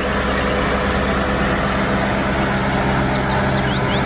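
Tractor engine idling with a steady, even hum, laid in as a sound effect that starts and stops abruptly. A few short high chirps come in over it in the second half.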